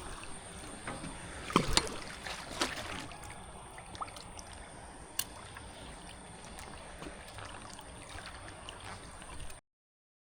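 Water sloshing and splashing at the edge of a fishing pond, with a cluster of sharp splashes about one and a half seconds in and a few single ones after. A thin high steady tone runs underneath, and the sound stops abruptly near the end.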